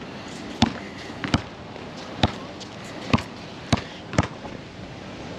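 About six sharp knocks at uneven intervals, over a steady outdoor hiss.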